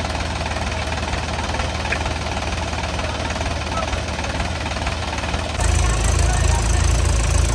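Diesel tractor engine running steadily, growing suddenly louder and deeper about five and a half seconds in.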